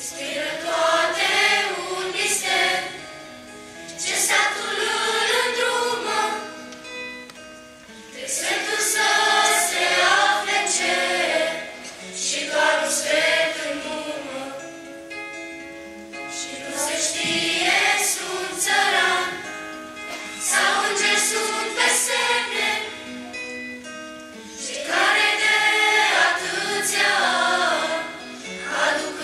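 Children's and teenagers' choir singing a Romanian Christmas carol (colind), in phrases of about three to four seconds with short breaths between them, over held accompaniment notes.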